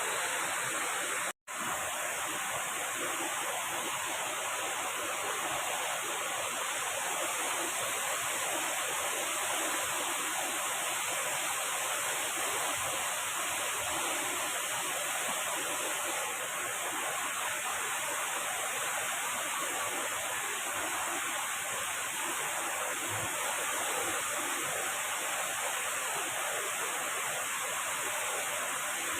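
Waterfall pouring steadily, a constant rush of falling water, with a momentary dropout to silence about a second and a half in.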